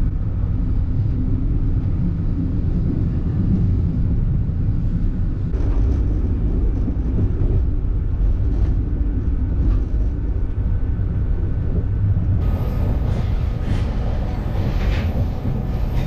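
Passenger train running, heard from inside the carriage: a steady low rumble with a few faint clicks. A thin high whine joins about three-quarters of the way through.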